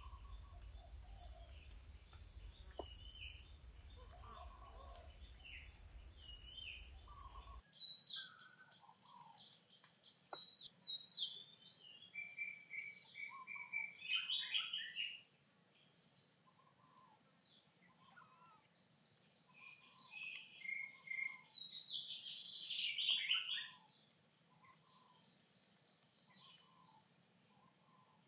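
Insects droning steadily at a high pitch, with short bird chirps over them; the background shifts abruptly twice, at about eight and fourteen seconds in.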